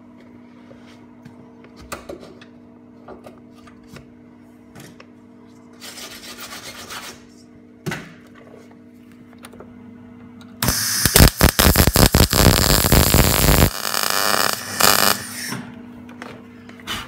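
MIG welder arc crackling and spitting loudly for about five seconds, starting about ten seconds in, as steel is welded onto the car's quarter panel. Before that, a steady low hum with a few faint clicks and one short, quieter burst.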